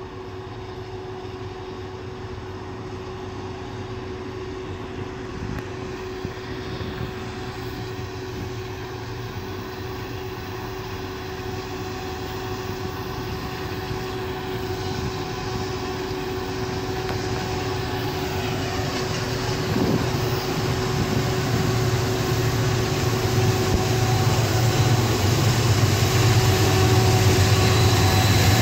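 Diesel-electric locomotives of an approaching freight train, a GE ET44AC leading with an AC44C6M, running with a low, steady engine drone that grows louder as the train nears.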